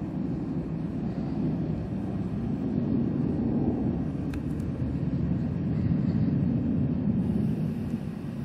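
Jet airliner engines giving a steady low rumble that swells a little toward the middle and eases near the end, with one brief faint click about four seconds in.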